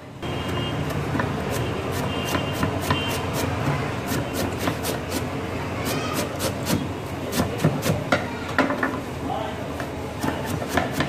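Kitchen knife chopping fresh coriander on a wooden board: quick sharp knocks of the blade on the wood, sparse at first and then about three a second from about four seconds in. Voices chatter in the background.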